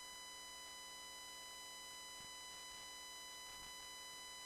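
Electrical line noise from a USB floppy drive leaking into headphone audio: a faint, steady high whine made of several even tones over a thin hiss, with a couple of faint ticks.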